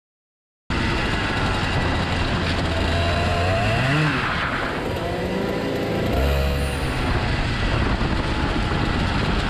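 Two-stroke kart engine heard onboard, revving up, dropping off around four and a half seconds in, then picking up again about six seconds in. It cuts in suddenly after a moment of silence under a second in.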